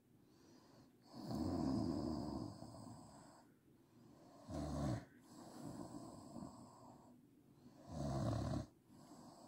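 A woman snoring in her sleep: three loud snores about three and a half seconds apart, each followed by a softer, longer breath.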